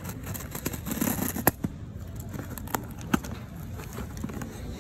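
An iPhone 11 box and its wrapping being handled for unboxing: light crinkling and rustling with a few sharp clicks, the loudest about a second and a half in.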